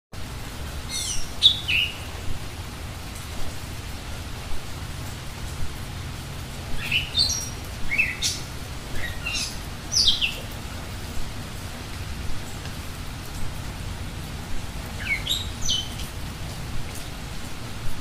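A songbird singing in three bouts of high notes that slide downward, about a second in, in the middle and near the end, over a steady rain hiss with scattered drips.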